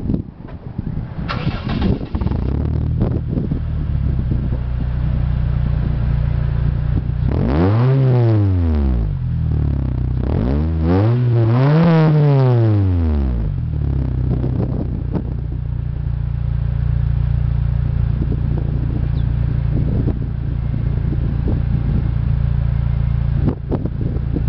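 Honda Fit GD3's 1.5-litre four-cylinder engine through a Mugen dual-outlet exhaust silencer: it starts up about a second in and settles into a steady idle. In the middle it is revved twice, the note rising and falling, then drops back to idle.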